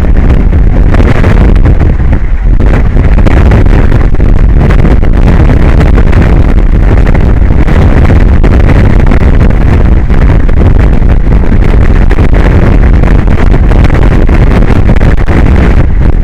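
Heavy wind buffeting the microphone: a loud, rough roar with no clear pitch, near the recording's maximum level. It begins and ends abruptly.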